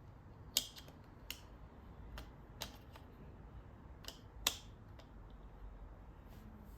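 Irregular sharp plastic clicks and taps from the parts of a Logitech wireless keyboard being handled and fitted back together, about eight in all, with two louder snaps near the start and past the middle.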